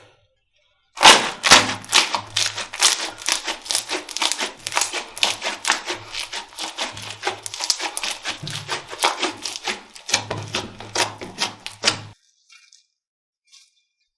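Slime being squeezed and poked, giving a rapid run of sharp clicks and pops that stops about two seconds before the end.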